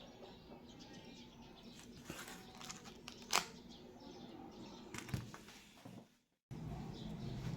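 Faint rustling and light clicks of small items being handled, with one sharper click about three seconds in. Near the end the sound cuts out briefly and returns with a steady low hum.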